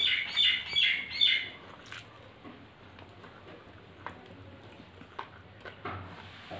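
A bird chirping in a quick run of short, sharp notes during the first second and a half. After that come faint clicks and squelches of rice and curry being mixed by hand on a steel plate.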